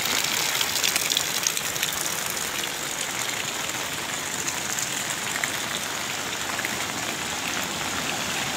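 Heavy rain pelting a flooded concrete road: a steady, dense hiss of drops striking standing water.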